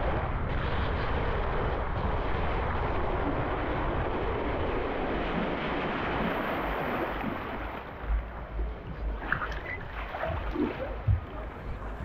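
Rushing water and wind buffeting the microphone as a rider slides down a multi-lane mat racing water slide. About eight seconds in the noise eases as the ride slows in the splash-out run, leaving scattered splashes and knocks, with one sharp knock near the end.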